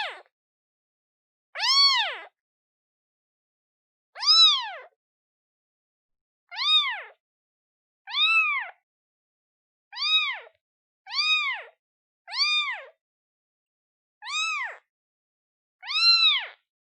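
A day-old kitten meowing for its mother: about ten short, high meows, each rising then falling in pitch, one every second or two with silence between.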